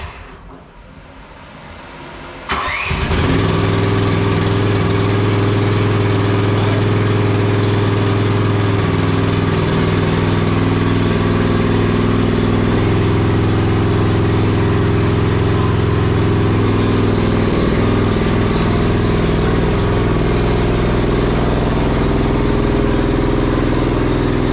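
Small gas engine of a Chinese mini skid steer loader cranked by its key starter about two and a half seconds in, catching at once and then running steadily.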